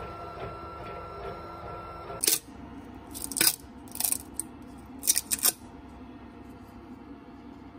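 3D printer running with a steady motor whine until about two seconds in. Then about six sharp plastic clicks and taps as the freshly printed part is gripped and pulled from the print bed.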